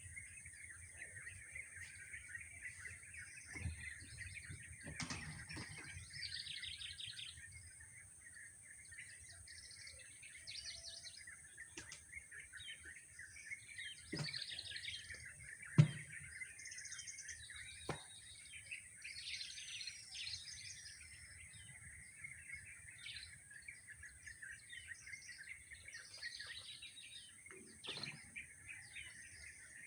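Several wild birds chirping and trilling in short, scattered phrases over a steady high-pitched background drone. A few sharp clicks or knocks cut through, the loudest about 16 seconds in.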